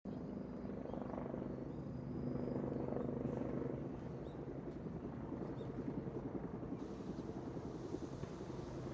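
Helicopter flying: a steady rotor and turbine sound with rapid blade chop, swelling slightly a couple of seconds in.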